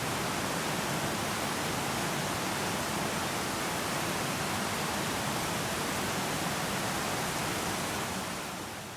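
Waterfall rushing in a steady, even roar that fades out near the end.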